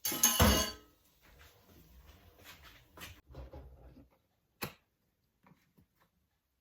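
A loud knock and rattle right at the start, then faint handling noises with two sharp clicks, like objects being moved about on a kitchen counter.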